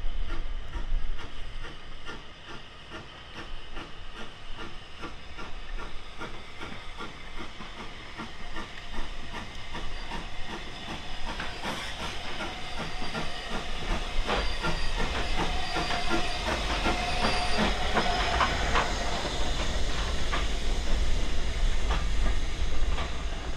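Kitson-built steam locomotive with its train running, steam hissing over a run of regular clicks. The hiss grows louder about halfway through.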